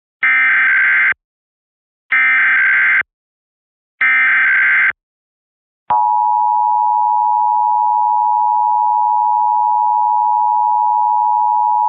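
Emergency Alert System SAME header: three short bursts of digital data tones, each just under a second long and about two seconds apart. About six seconds in, the steady two-tone EAS attention signal (853 and 960 Hz) starts and holds, opening a statewide Required Monthly Test.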